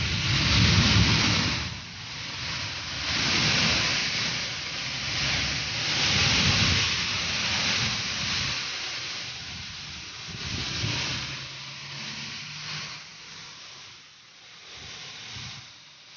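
Heavy rain pouring, a steady hiss that swells and fades in waves, with patches of low rumbling underneath.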